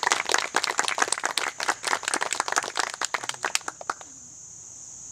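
Applause: many hands clapping irregularly, dying away about four seconds in.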